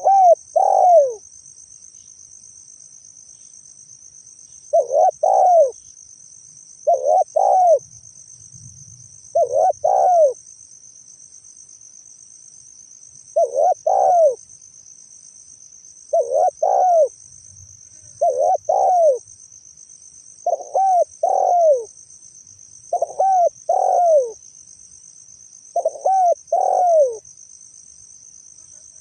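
Spotted dove (tekukur) cooing: short phrases of a few falling notes, repeated about every two seconds after a longer pause near the start. A steady high insect buzz runs underneath.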